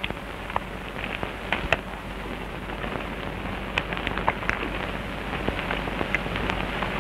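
Steady hiss with irregular, scattered clicks and crackles, the background noise of an old film soundtrack.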